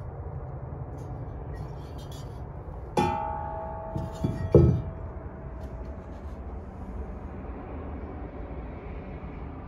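A welded steel flange piece clanks once against metal about three seconds in and rings on for about two seconds, then a few knocks follow, the last a heavy thump.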